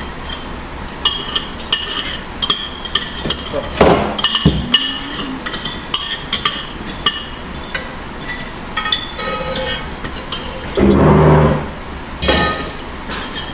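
Cutlery clinking and tapping against plates while people eat, a light ringing click every half second or so, with a short voice-like sound about eleven seconds in.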